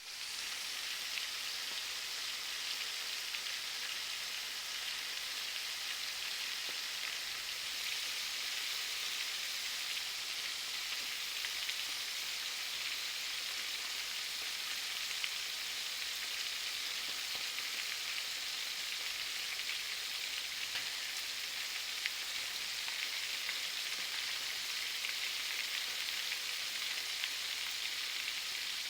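Fish frying in a pan: a steady sizzle with fine crackling throughout.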